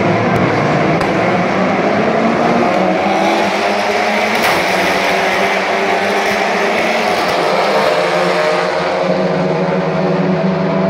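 A pack of TCR touring cars at full throttle, their turbocharged two-litre four-cylinder engines all revving hard at once as the field accelerates away from the race start and passes by. Many engine notes overlap and rise in pitch together through the middle of the clip.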